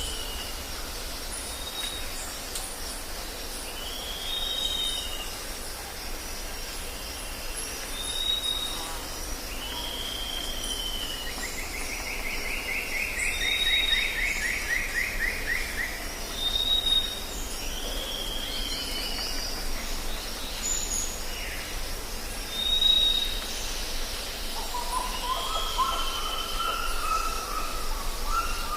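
Tropical forest ambience: several birds call over a steady high insect chorus. A short clear whistle repeats about every two seconds, mixed with downslurred calls and a rapid trill about halfway through. A run of lower rising notes comes near the end.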